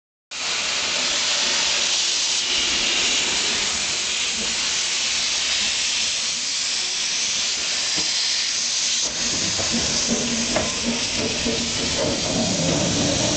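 Steam locomotive letting off a steady, loud hiss of steam. From about nine seconds in, a lower rumble and a few clicks join the hiss.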